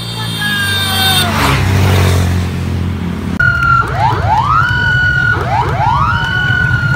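A motor scooter's engine hum with a swell as another scooter passes. Then, after an abrupt cut about three and a half seconds in, parade escort vehicles' sirens whoop over and over. Each call rises and holds a high note, several overlapping, about one a second.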